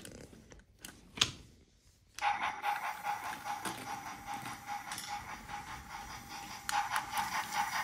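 A sharp click, then about two seconds in a battery-powered Brio toy train's small electric motor starts up and runs steadily: a steady gear whine with a rattle over it.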